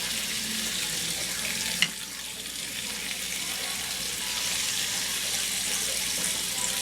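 Bacon frying in a pan, a steady sizzling hiss, with one sharp click about two seconds in.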